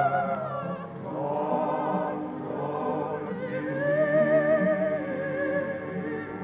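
Operatic solo voice singing long held notes with a wide vibrato over a steady accompaniment, played from an old gramophone record. The voice dips about a second in, then swells on a long, slowly rising note in the middle.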